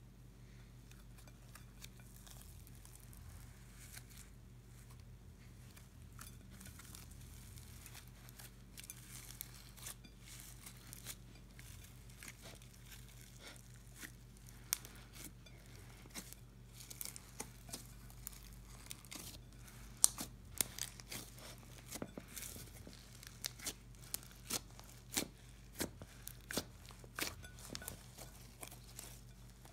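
Clear slime with glitter, crushed eyeshadow and foam beads being kneaded and stretched by hand: sticky crackling and popping clicks, sparse at first and growing quicker and louder through the second half.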